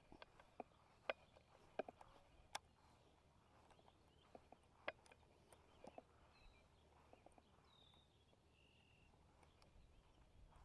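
Near silence, broken by scattered faint clicks and ticks and, past the middle, a few short faint bird chirps.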